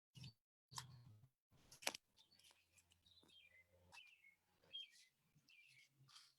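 Faint outdoor bird chirps, many short calls sliding downward in pitch, through the second half. A few sharp clicks come in the first two seconds, with short gaps of dead silence between them.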